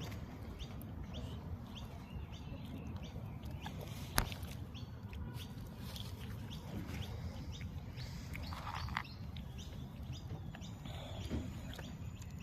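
Birds chirping in short calls over a low steady rumble, with one sharp click about four seconds in.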